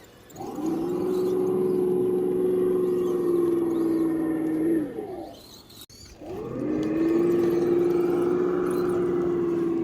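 Electric motor and gear drivetrain of an RC crawler whining under throttle, twice. Each time the pitch rises quickly and then holds steady. The first run eases off near the five-second mark; the second starts about a second later and keeps going.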